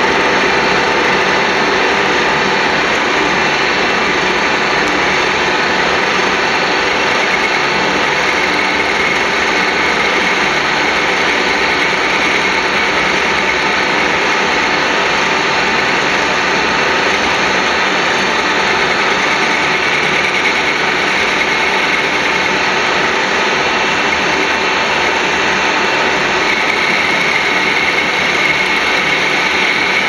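Metal lathe running steadily while turning down a cast aluminium bar, the cutting tool peeling off aluminium chips. A higher whine comes and goes over the steady machine noise.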